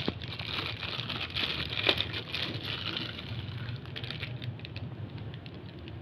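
Thin clear plastic bag crinkling as a bicycle bottom bracket is pulled out of it, with small clicks of handling. The crinkling is densest in the first half and thins out to scattered ticks after about three seconds.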